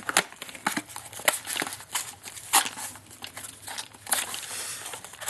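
Irregular clicks and knocks of handling: .50 BMG cartridges and their cardboard ammunition box being picked up and moved about.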